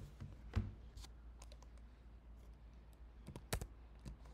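A few irregular, faint clicks at a computer, like keys or mouse buttons being pressed, about a dozen in four seconds. The loudest comes about three and a half seconds in.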